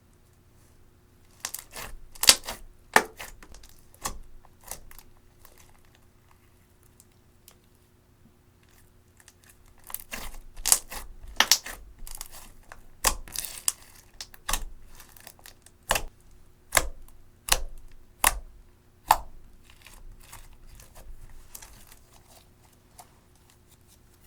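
Slime being squeezed and stretched by hand, trapped air popping in sharp clicks and crackles. A first cluster of pops comes about two seconds in. After a pause of a few seconds a longer run follows, with loud single pops near the end of it.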